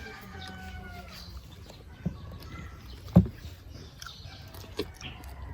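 A rooster's crow trails off about a second in, a long pitched call that falls slightly at its end. A few sharp clicks and knocks follow, the loudest about three seconds in.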